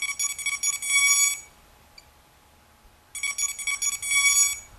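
Electronic beep tones from the hexacopter's Castle Creations Phoenix Edge 100 ESCs sounding through its brushless motors: two runs of rapid high-pitched beeps, each about a second and a half long, the second starting about three seconds in.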